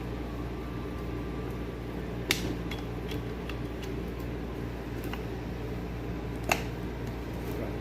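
Sharp small clicks and taps of a hand tool working a cross-threaded screw in the weed trimmer's housing, two louder clicks about two seconds in and near the end, over a steady background hum.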